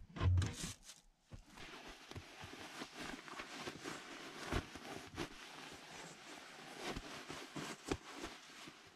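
Nylon sleeping bags rustling and crinkling as they are spread out and handled, with a couple of soft thumps about half a second in.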